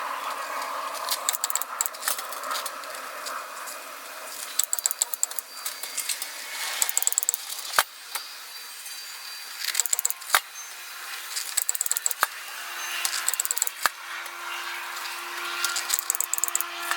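Steel clinking and rattling in short bursts of rapid clicks, with a few single sharp clicks, as expanded diamond metal is worked on a welding cart shelf during spot welding. A faint steady hum joins about ten seconds in.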